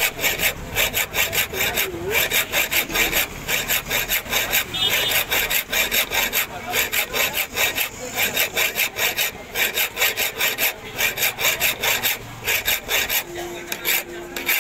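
Flat steel hand file rasping in quick back-and-forth strokes, about four a second, over the shaft of a new sewing machine motor armature, filing it down a little so it seats in the motor's bushing. The strokes stop briefly a few times and start again.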